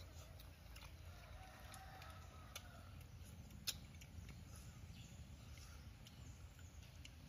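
Quiet hand-eating sounds: faint scattered clicks and smacks of fingers, food and chewing, with one sharper click a little past halfway, over a low steady rumble.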